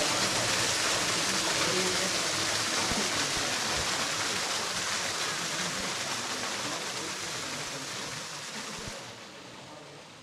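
Water from a small waterfall splashing and rushing as a steady hiss, fading out over the last couple of seconds.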